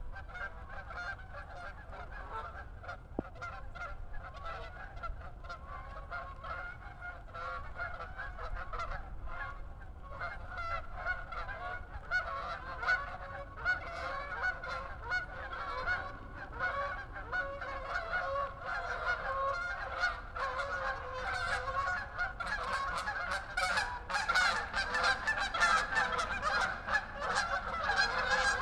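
A large flock of birds calling continuously, many overlapping honking calls at once, growing louder in the second half.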